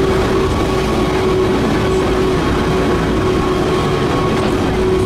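Pikes Peak Cog Railway railcar running steadily, heard from a passenger seat inside the car: a continuous low rumble from the rack railcar's engine and drive, with a steady whine held on one pitch.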